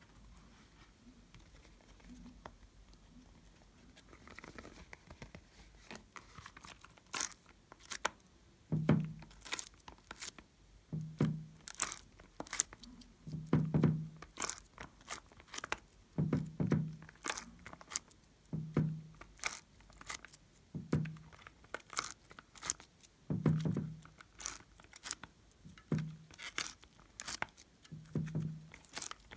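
Glossy slime being kneaded and folded by hand: sticky clicks and pops, with a low squelch roughly every two to three seconds. It is faint at first and grows busier after about seven seconds.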